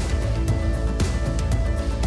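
Instrumental outro music with sustained chords and a steady beat of about two strikes a second.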